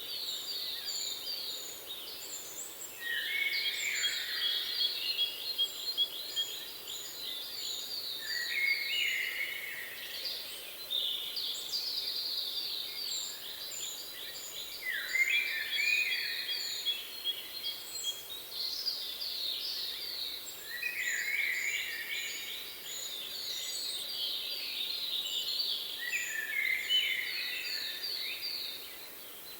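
Songbirds singing, with several songs overlapping. Fast, chattering, trilled phrases repeat every few seconds, while a thin, high note is repeated in quick, even series.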